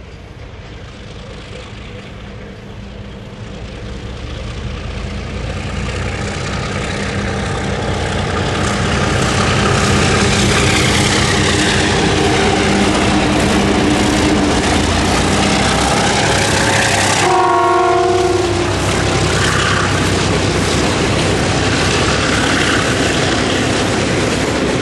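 Diesel-electric locomotives ZR2100 and DQ2006 hauling a loaded coal train, their engines growing steadily louder as they approach and pass close by, with rolling wagon noise. About two-thirds of the way through, a locomotive horn sounds briefly.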